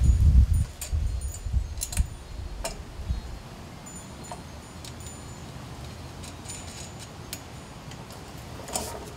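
Light metallic clinks and ticks, spaced irregularly about once a second, as the metal handle tubes and fittings of a Helix push mower are handled and fitted together, with a low rumble in the first few seconds.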